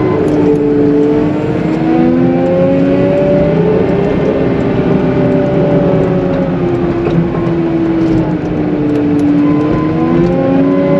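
CAT 906M compact wheel loader's diesel engine working under load while pushing wet slush. The engine pitch rises, sags through the middle and climbs again near the end as the load changes.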